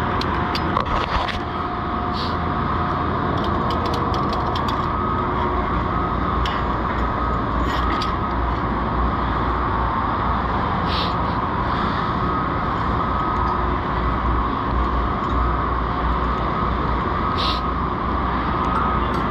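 Steady machinery drone on a steel erection site, with a few scattered clicks and knocks.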